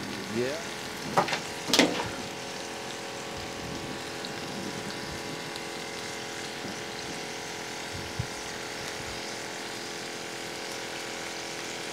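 Bacon and bratwurst sizzling on a Blackstone 22-inch griddle: a steady frying hiss. Two short sharp knocks come about a second and two seconds in.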